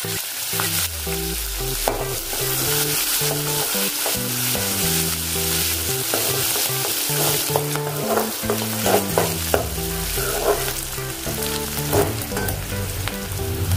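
Chopped onion and green chillies sizzling steadily in hot oil with mustard seeds and cumin, stirred in the pan with a spatula that clicks against the metal now and then.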